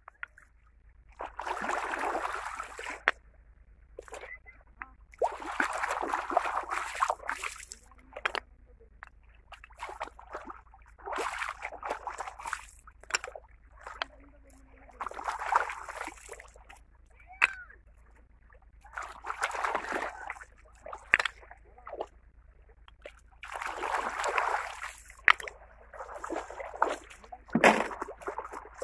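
Shallow seawater splashing and sloshing as large sea shells are swished and rinsed by hand, in bursts of a second or two that come every few seconds.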